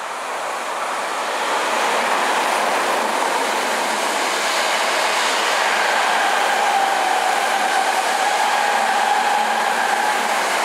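Tokyo Metro 6000 series electric train passing close by, its running noise rising as it approaches and then holding steady as the cars go by. A steady whine joins in about halfway through.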